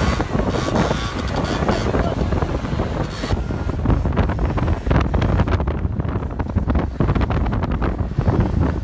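Wind buffeting the microphone of a moving camera, with the engine and road noise of scooters riding alongside, including a scooter ridden on its back wheel. The sound changes abruptly about three seconds in.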